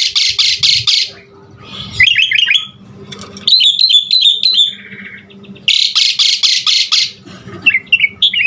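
Asian pied starling (jalak suren) singing. Bursts of rapid, harsh rattling notes alternate with runs of short chirped whistles, the harsh rattle at the start and again about six seconds in.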